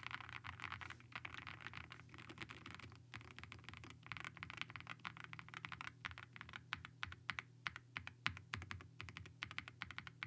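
Zoom65 2.0 mechanical keyboard with WS Morandi linear switches and PBT keycaps being typed on. Keystrokes come in dense fast runs at first, then thin out to separate, spaced key presses in the second half.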